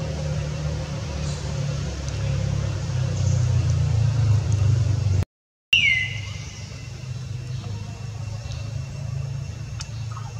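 A steady low rumble like a nearby engine running, broken by a brief dropout about five seconds in. Right after the break comes a short high squeak that falls in pitch, and the rumble is quieter after it.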